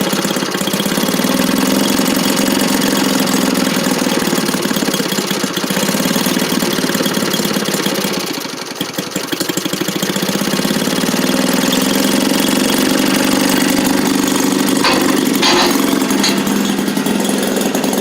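Maytag Model 72 twin-cylinder two-stroke engine running steadily at idle. It dips briefly about halfway through, then picks back up and keeps running.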